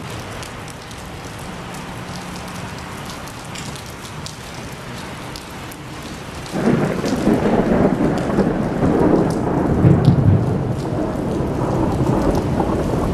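Steady rain falling, with scattered drop ticks. About halfway through, thunder breaks in suddenly and rolls on as a long low rumble, loudest a few seconds after it starts.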